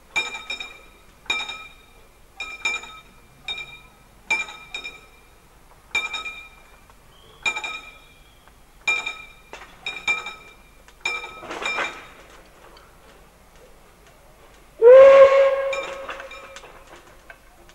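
A level-crossing warning bell strikes over and over in uneven single strokes, each ringing briefly, while the crossing barriers lower. Then DB class 23 steam locomotive 23 105 gives one loud steam whistle blast of about two seconds.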